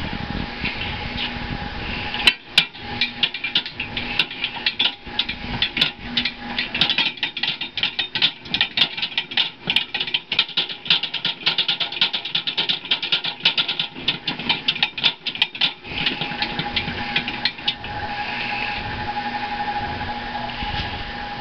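Hobart H-600 60-quart mixer running empty with a steady mechanical whine. From about two seconds in until about sixteen seconds, a rapid, irregular clatter of sharp clicks plays over it, then it settles back to the plain running whine.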